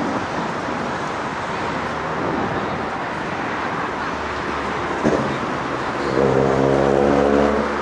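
Road traffic noise heard from the seafront, steady throughout. About five seconds in there is a short knock. Then a vehicle engine drones at a steady low pitch for about a second and a half, louder than the background.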